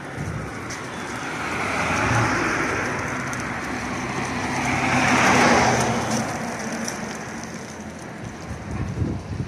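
Cars passing by on a street, the tyre and engine noise swelling and fading twice, loudest about two seconds in and again about five and a half seconds in.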